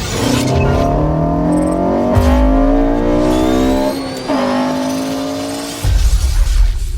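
Honda Civic Si's turbocharged 1.5-litre four-cylinder revving up under hard acceleration, rising in pitch, with an upshift about four seconds in after which the revs climb again.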